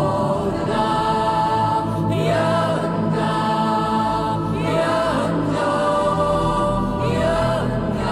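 Choral film-score music: voices holding sustained chords, with three sweeping vocal phrases that rise and fall, about two, five and seven seconds in.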